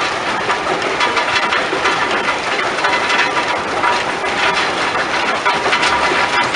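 Rock crushing plant running: a steady, noisy mechanical din with a constant rattle from the crusher and conveyors.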